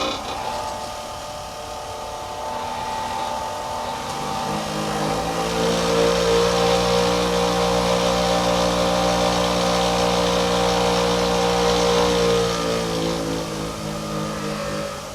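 WEN 4280 bench grinder switched on with a click, its motor hum rising in pitch as the freshly balanced wheels spin up, running steadily, then falling in pitch as it winds down near the end.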